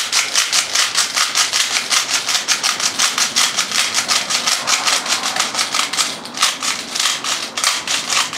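Airsoft speed loader being pumped by thumb to push 0.3 g BBs into an M4 mid-cap magazine: a fast run of plastic clicks with BBs rattling, about five a second, with a short break about six seconds in.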